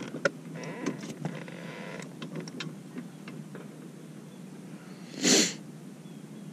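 A person's short, loud sniff about five seconds in, over faint scattered ticks.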